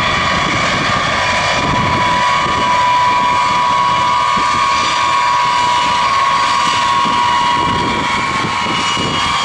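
Boeing B-52 Stratofortress's eight TF33 turbofan engines running as the bomber rolls along the runway: a steady high whine over a rough, uneven rumble.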